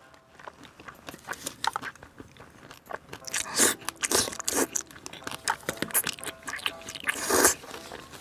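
Close-miked eating: crunchy bites and chewing, full of small crackles, with louder crunches about three and a half, four and a half and seven and a half seconds in.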